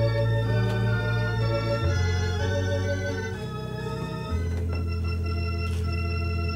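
Organ music playing slow, held chords over a sustained bass note that shifts to a new pitch a few times.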